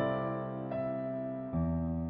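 Background music: soft electric piano playing slow sustained chords, a new chord struck about every three-quarters of a second and left to fade.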